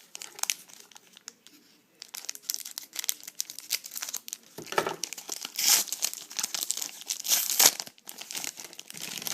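A 2010 Panini Epix trading-card pack wrapper being torn open and crinkled by hand. The crackling is dense after about two seconds, with the loudest crinkles around five to six seconds in and again at about seven and a half seconds.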